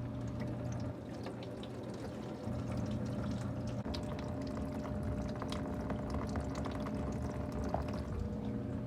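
Engine coolant pouring and dripping out of the opened water-pump housing of a 2AR-FE engine into a catch container below: a continuous splashing trickle with scattered drips, a little heavier after about two seconds.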